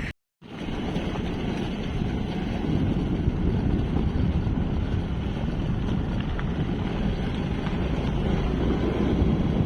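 Wind rumbling and buffeting on a phone microphone outdoors, a steady low noise that follows a moment of silence at the very start.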